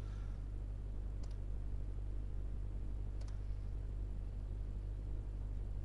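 Two faint computer mouse clicks, about a second in and about three seconds in, over a steady low hum.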